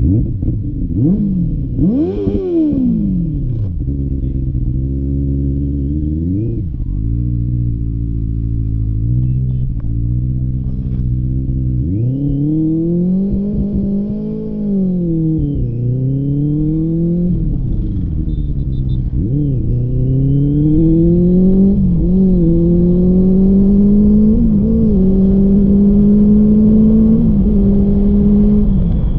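Benelli TNT 600i's inline four-cylinder engine and exhaust: a quick rev at standstill about two seconds in, then running steadily before the bike pulls away about twelve seconds in and accelerates, the pitch climbing and dropping back again and again.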